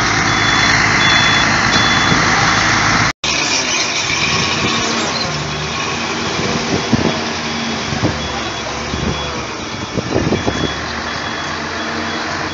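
Vehicle reversing alarm beeping about twice a second over a loud running engine, cut off briefly about three seconds in and then fainter before it grows again.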